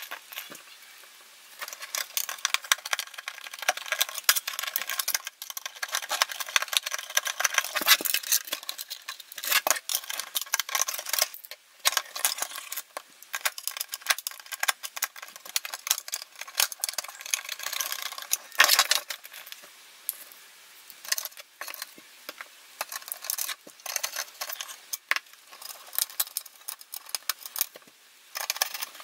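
Small machine screws and a screwdriver clicking, scraping and rattling against the metal chassis and circuit-board plate of an avionics receiver being screwed back together: a run of irregular light metallic clicks with brief lulls.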